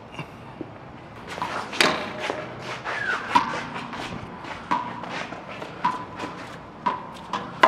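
Footsteps and shoe scuffs on a concrete racquetball court, with scattered short squeaks and a sharp knock near the end.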